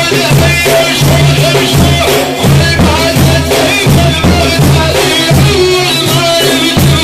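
Sufi dhikr: voices chanting over frame drums beaten in a steady rhythm.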